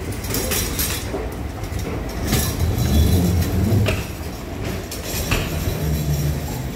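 Metal shopping cart rolling off a moving walkway and across the floor, its wheels giving a low rattling rumble, with a few sharp clicks and clinks.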